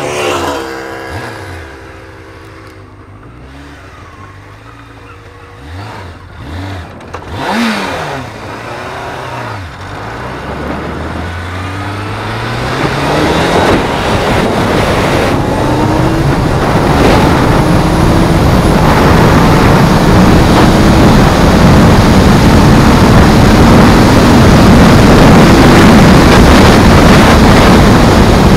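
Honda CBR600F3's inline-four engine running at low revs, then accelerating hard through several gears with rising revs. Wind rush on the microphone builds with speed until it is the loudest sound.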